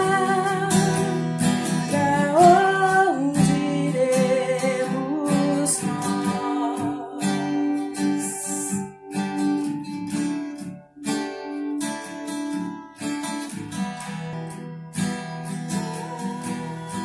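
Acoustic guitar strumming chords, accompanying a woman singing a worship song. The singing drops away about six seconds in, and the guitar plays on.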